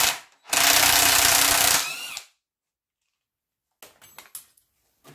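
Cordless impact wrench hammering on the rusty single bolt of a classic Mini rear subframe's trunnion, undoing it in a brief burst and then a longer burst of about a second and a half. Near the end, faint light metal clinks.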